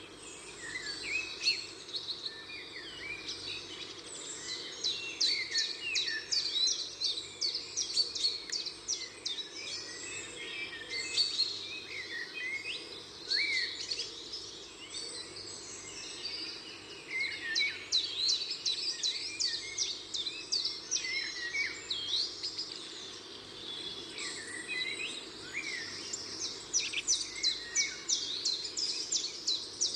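Many small birds chirping and twittering continuously in quick, high calls, over a steady low background hiss.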